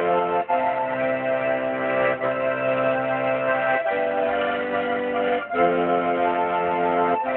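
Red Hohner piano accordion playing held chords with a bass line. The harmony changes about every one and a half to two seconds, with a short break at each change.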